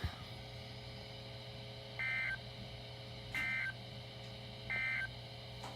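Emergency Alert System end-of-message signal: three short bursts of digital data tones, evenly spaced about 1.4 seconds apart, closing the severe thunderstorm warning broadcast. A faint steady hum runs underneath.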